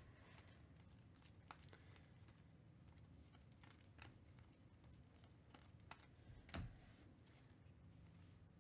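Near silence, with faint soft clicks of 2021 Panini Mosaic football cards being flipped one by one through a stack in the hands. A slightly louder tap comes about six and a half seconds in.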